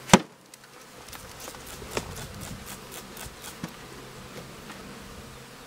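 A swarm of honey bees buzzing around an open hive. A sharp knock comes just after the start, and a few fainter clicks and taps follow later.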